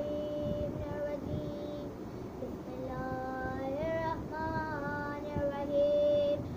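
A boy singing devotional verses in praise of Ali (a manqabat), holding long drawn-out notes that slide up and down, with a short break about two seconds in.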